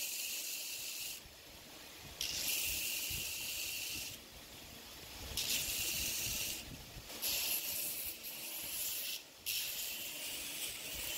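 Belt grinder's abrasive belt grinding a wooden knife handle with metal pins: a high hiss in five passes of one to two seconds each, with short breaks between them as the handle is pressed on and lifted off.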